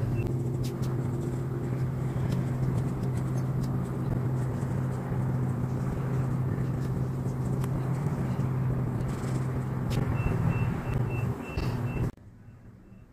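A steady low machine hum over a noisy bed, with scattered clicks. A short run of faint, evenly spaced beeps comes near the end, and then the sound cuts off abruptly.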